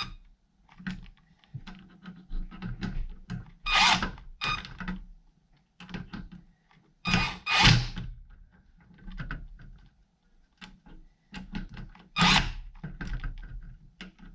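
A cordless drill driving the Allen bolts that fasten a steering wheel to its billet hub, in three short bursts of about half a second to a second each, with clicks and knocks of the parts being handled in between.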